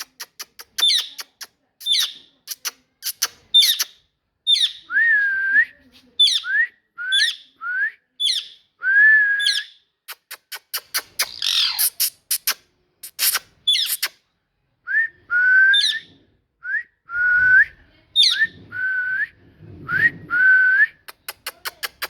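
Pet parrot whistling and chirping: quick falling chirps and short bent whistled notes, mixed with sharp clicks, in rapid runs.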